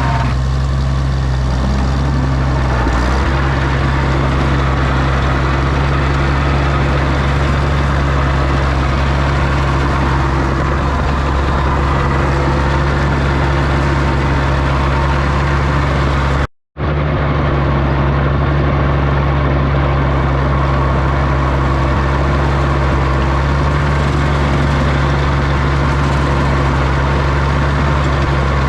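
Oliver OC-6 crawler tractor engine running steadily, with a deep, even note. The sound drops out for a split second a little past halfway, then picks up again unchanged.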